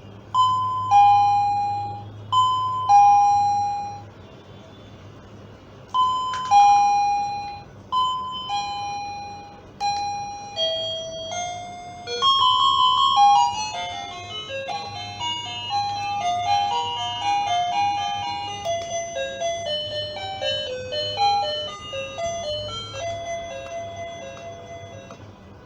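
Wireless doorbell receiver playing its electronic chimes: a two-note high-low ding-dong sounds several times with pauses between, then a falling run of notes leads into a fast multi-note melody that plays on through the rest.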